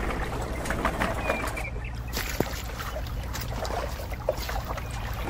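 Wet concrete sloshing and sliding out of a miniature metal wheelbarrow as it is tipped onto a popsicle-stick deck, with a few faint clicks over a steady low hum.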